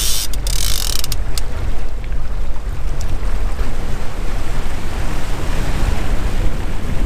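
Motorboat engine running underway, a steady low rumble with water rushing past and wind buffeting the microphone. Near the start, a few sharp clicks as a spinning reel winds in line.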